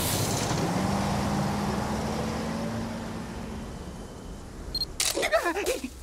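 Cartoon sound effect of a motor vehicle's engine running and dying away over about four seconds. About five seconds in comes a short, loud burst of sound.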